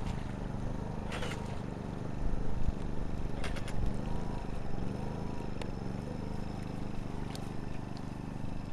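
RC speedboat's UL-1 brushless electric motor running at low power, a low hum rising and falling as the boat limps in on batteries that may be spent. A few faint clicks.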